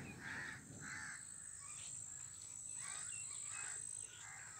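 Crows cawing: two caws in the first second, then a few more calls about three seconds in.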